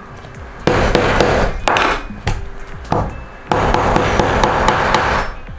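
Wooden mallet knocking on a setting tool to drive brass fittings into leather: two dense runs of blows, each over a second long, with a few single knocks between them.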